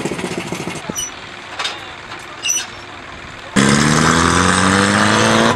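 Small motorcycle engines of sidecar taxis, one idling with a pulsing beat that fades within the first second. About three and a half seconds in, a much louder motorcycle engine comes in close, its pitch rising steadily as it accelerates.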